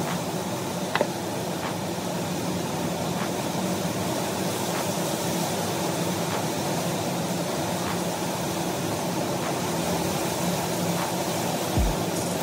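Steady whirring air noise, like a fan or blower, with a light click about a second in.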